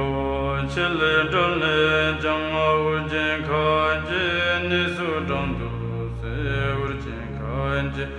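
Tibetan Buddhist prayer to Guru Rinpoche chanted in a melodic, sung voice over a steady low drone.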